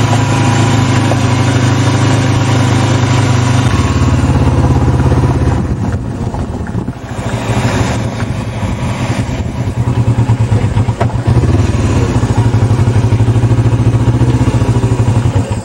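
A vehicle engine running close to the microphone: a steady low drone with rapid pulsing that grows heavier about four seconds in and again from about ten seconds.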